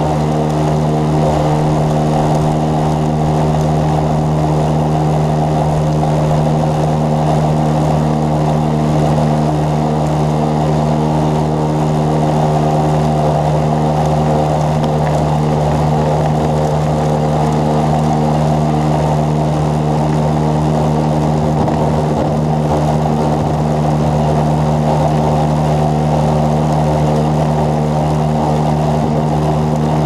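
A motor running steadily at one constant pitch, without revving or change.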